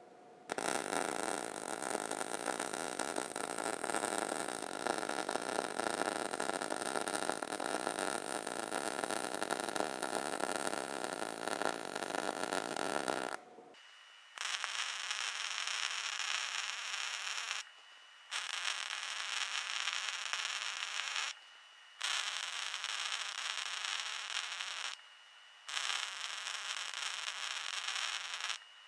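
MIG welding arc running steadily as a bead is laid across 1/4-inch plate, a continuous run of about 13 seconds. After a short break it runs in four shorter stretches of about three seconds each, stopping briefly between them.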